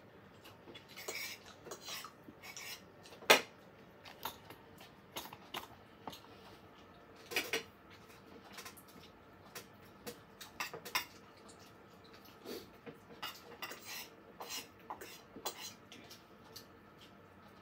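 Fork and spoon clinking and scraping against dinner plates while eating, in scattered light clicks, the loudest about three seconds in.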